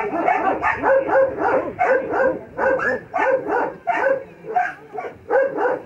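A dog barking rapidly and steadily, about three short barks a second.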